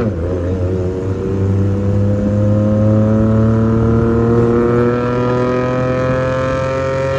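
An engine running steadily, its pitch slowly creeping up.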